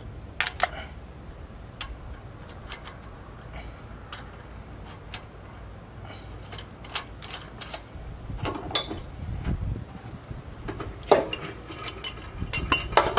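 Small metal clicks and clinks of weight-distribution hitch hardware being handled: a washer and nut fitted by hand onto the threaded chain end that pokes through the hitch bracket. Scattered sharp clicks, coming thicker over the last few seconds.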